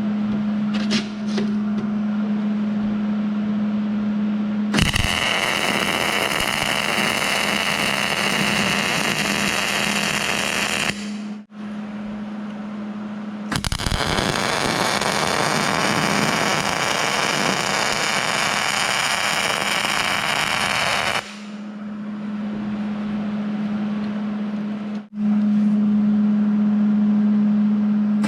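Welding arc crackling on steel in two long runs, about six and eight seconds each, with a short break between. A steady low hum continues underneath and between the welds.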